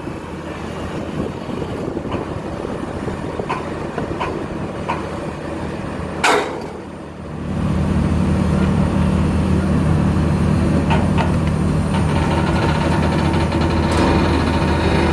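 Excavator diesel engine running, heard from inside the cab, with a few light clicks. A brief hiss about six seconds in, after which the engine grows louder and holds steady.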